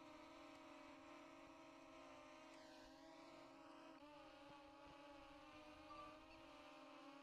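Faint hum of a small quadcopter drone's motors and propellers: several steady tones whose pitch wavers slightly, more so in the second half.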